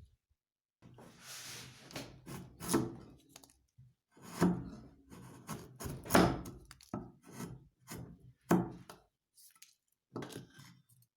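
Workshop handling of wooden parts: a run of irregular knocks and thunks mixed with short rubbing and scraping strokes on wood.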